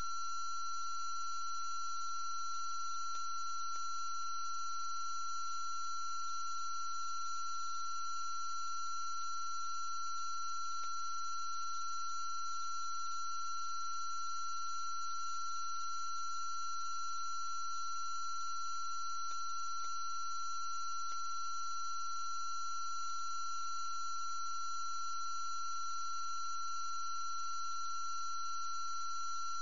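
A steady, high-pitched electronic tone that does not change, with fainter higher tones above it and a few faint ticks.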